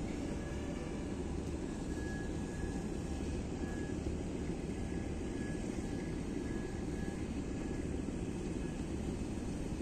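Steady low rumble of a boat's engine, with a faint high whine that comes and goes.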